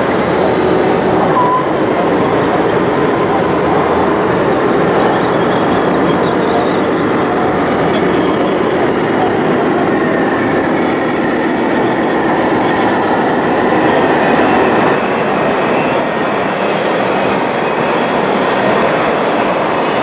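Radio-controlled scale Komatsu D65PX bulldozer crawling over soil, its metal tracks and drive giving a steady, dense clattering rattle.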